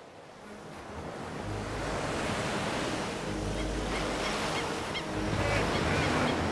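Ocean surf breaking and washing onto a beach, swelling up from quiet about a second in and staying loud.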